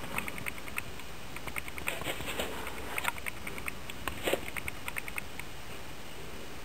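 A small floating toy soccer ball knocks lightly against aquarium glass as a cichlid pushes it: quick irregular runs of light ticks and taps, with two louder knocks about three and four seconds in, stopping a little after five seconds.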